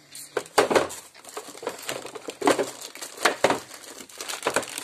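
Plastic packaging bags crinkling, with irregular clicks and knocks of hard plastic as a cordless drill and its attachment heads are handled.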